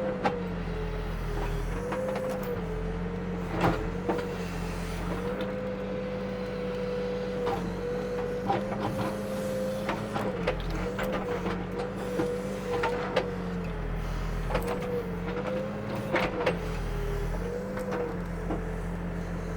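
Backhoe's diesel engine and hydraulics running steadily while the bucket works wet dirt into mud, the whine dipping in pitch now and then. A few sharp clunks from the bucket and machine, one about four seconds in and another near sixteen seconds.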